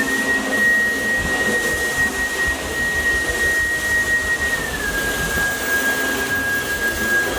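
Cordless stick vacuum running while it is pushed over a rug: a steady rush of air under a high motor whine, which drops slightly in pitch about two-thirds of the way through.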